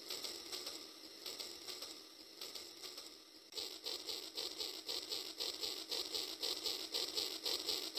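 Rail King toy train running on its track: a fast, even clicking of about five clicks a second, growing louder about three and a half seconds in.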